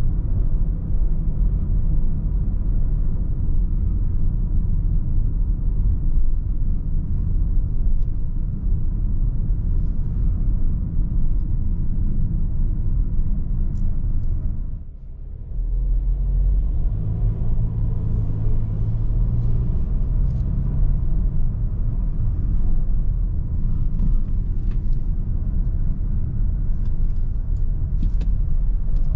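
Cabin noise of a 2019 Audi Q3's 2.0-litre diesel on the move: a steady low rumble of engine and tyres. It drops away briefly about halfway through, then picks up again.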